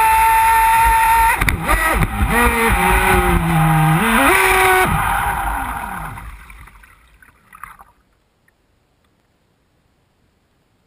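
Pro Boat Voracity RC speedboat's brushless electric motor whining at full speed over the rush of spray; about one and a half seconds in the whine drops and wavers as the throttle comes off, rises once more, then stops about five seconds in. The hiss of water fades as the boat coasts to a stop, leaving near silence with a few faint ticks.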